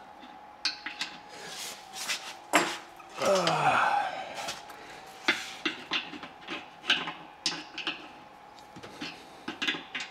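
Small metal pipe fittings clinking and knocking as they are handled and turned by hand: a scattered series of short taps and clicks.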